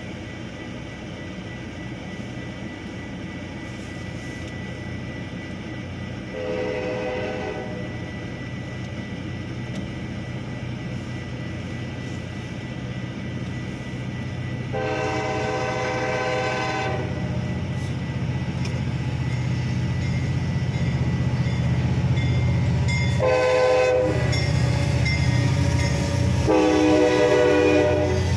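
Metra commuter train sounding its horn for the grade crossing as it approaches: two long blasts, a short one, then a long one that runs into the train's arrival. Under the horn, the train's low rumble grows steadily louder as it nears.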